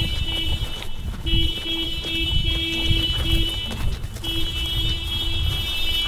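1999 Toyota Corolla's car alarm going off: a shrill, steady high tone sounding in blasts of about two and a half seconds with short breaks between.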